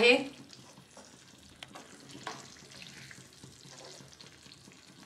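Wooden spatula stirring a thick prawn masala gravy in a pan, with faint sizzling and a few soft scrapes and taps of the spatula against the pan. The gravy is cooked down to the point where the oil separates.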